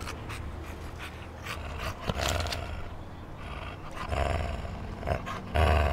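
English bulldog panting close by, with heavier breaths about four seconds in and near the end.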